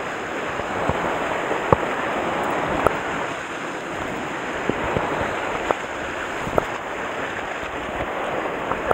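Sea surf washing against the shore rocks, a steady rush with wind on the microphone, broken by several short sharp clicks.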